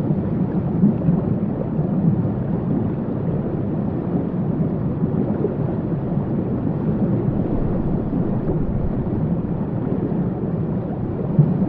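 Waterfall rushing steadily, a constant deep wash of falling water with little hiss.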